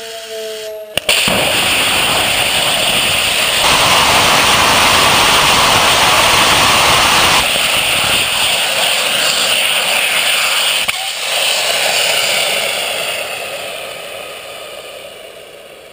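Hydra 3X hybrid rocket engine (HTPB-aluminium fuel, nitrous oxide oxidiser) lighting with a sharp pop about a second in after its igniter preheat, then firing for about ten seconds as a loud, even rushing roar. About eleven seconds in, a click marks the end of the burn as the engine is extinguished, and a rushing hiss fades away over the last few seconds.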